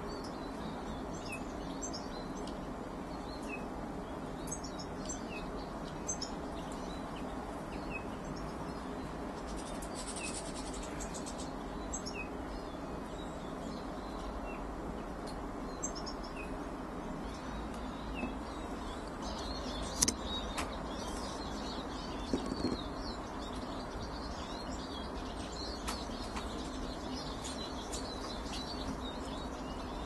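Small garden birds chirping and singing at intervals: many short, high calls over a steady low background rumble. One sharp click about two-thirds of the way through.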